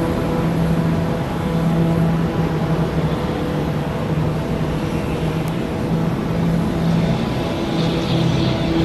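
Military transport aircraft engines running steadily, a loud even drone with several steady low tones.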